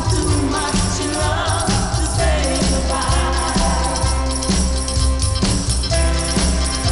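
A 1960s Motown girl-group record playing: a female lead singer and backing singers over a steady bass and beat.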